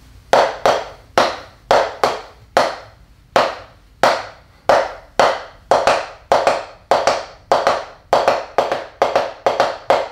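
Wooden taiko sticks (bachi) striking a drum practice pad, playing a written taiko solo: about two dozen sharp hits in an uneven rhythm with short gaps, coming quicker toward the end.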